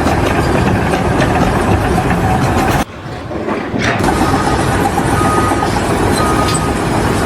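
Loud, steady rumbling machinery noise that cuts out suddenly about three seconds in and comes back within a second.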